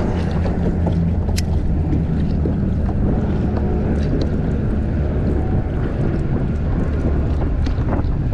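Strong wind of about 15 miles an hour buffeting the microphone in a steady, loud low rumble.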